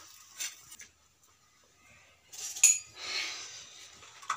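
Dishes being handled: a couple of light knocks, then one sharp clink about two and a half seconds in, followed by a short scraping rustle.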